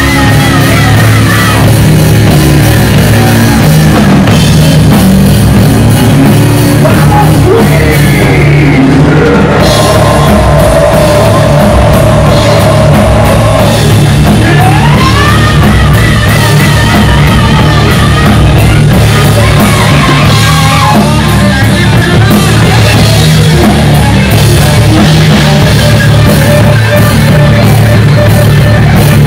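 Heavy metal band playing live and loud without a break: bass guitar and full drum kit under a sung and shouted lead vocal.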